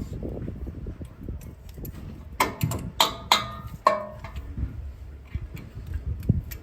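Metal tools and brake parts clanking during brake work, with about four sharp, briefly ringing metallic strikes in the middle and lighter handling clatter around them.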